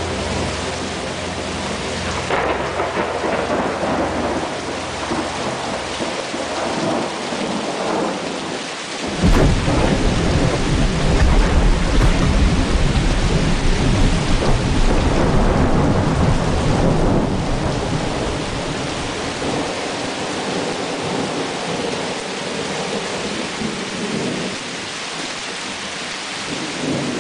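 Steady rain with a long rolling thunder rumble that breaks in suddenly about nine seconds in and dies away over the next ten seconds. A low steady hum fades out in the first few seconds.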